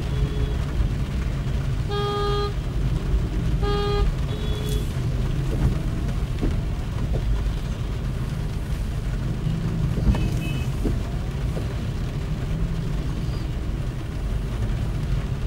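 Steady road traffic rumble of a drive through city streets, with two short car horn honks about two and four seconds in and fainter honks around them.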